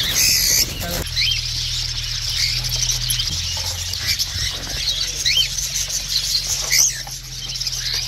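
A brief burst of wing flapping as cage birds scatter, then a flock of budgerigars and cockatiels chattering, with a steady high twitter and short rising chirps every second or so.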